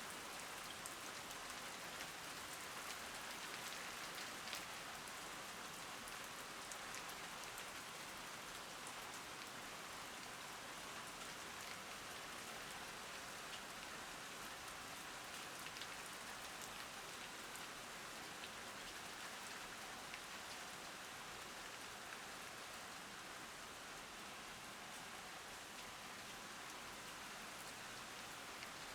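Steady rain falling: an even hiss with many scattered ticks of single drops, keeping the same level throughout.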